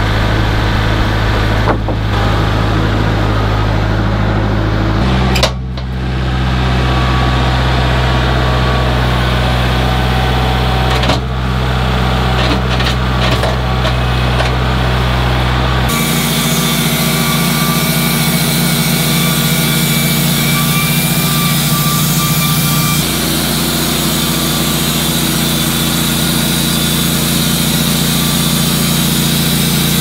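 The Wood-Mizer LT15 portable band sawmill's engine runs steadily, changing note about 5 s in. About 16 s in the sound changes again and a steady hiss with a high whine joins it as the band blade runs and the head moves to the log to start a cut.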